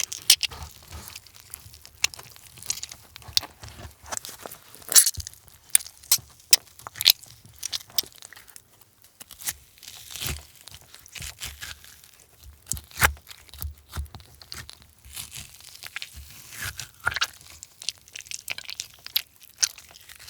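Foley of a knife cutting and squelching into oozing raw meat: an irregular run of wet squishes, slicing crunches and tearing sounds, some much louder than others.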